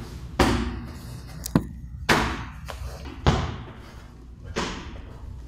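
Blows landing during martial-arts sparring: about five dull thuds of strikes on the body, roughly a second apart, with a sharp crack about one and a half seconds in.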